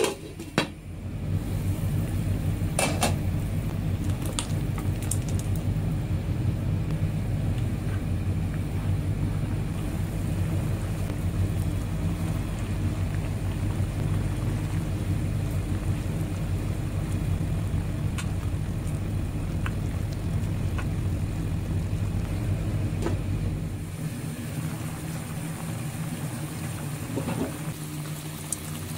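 Kurma gravy simmering in a frying pan, a steady bubbling boil. A sharp clink just after the start as a glass lid is set on the pan.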